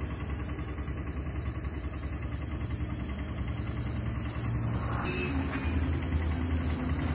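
Steady low rumble of an engine running, with a brief brighter sound about five seconds in.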